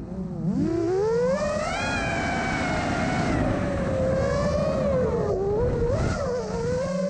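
Electric motor and propeller of a small FPV radio-controlled aircraft whining in flight over low wind rumble. The pitch drops sharply just after the start as the throttle is cut, climbs back over about a second, then rises and falls with the throttle through the manoeuvres.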